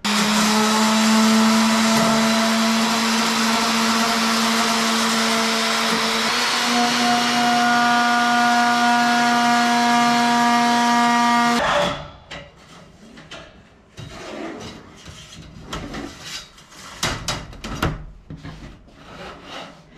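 Electric random orbital sander running steadily on aluminium spar pieces, sanding two cut ends flush; its motor pitch steps up slightly about halfway through, and it stops abruptly about twelve seconds in. Scattered light knocks and taps follow as the metal strips are handled on the bench.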